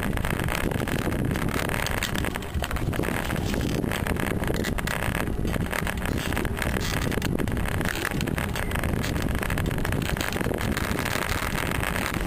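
Wind buffeting the microphone of a camera mounted on a moving fixed-gear bicycle, a steady rumble from the ride.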